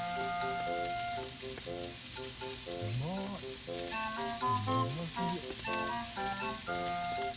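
Background music with plucked-sounding melodic notes and a couple of sliding low notes, over a steady sizzle of food frying in a pan.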